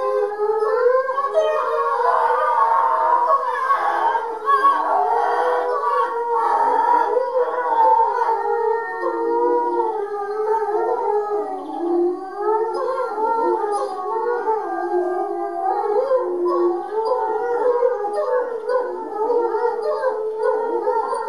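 Small dog howling without pause, long howls wavering up and down in pitch.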